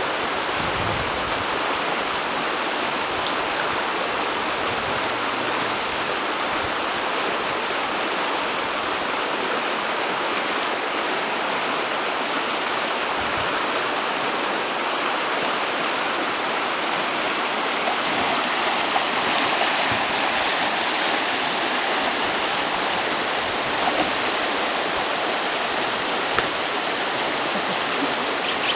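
Whitewater rapids of a small, shallow river rushing steadily over rocks, a little louder in the last third.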